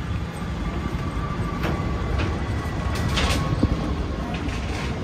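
Steady low rumble of road vehicles, with a faint steady whine and a few sharp clicks around the middle, loudest a little past three seconds in.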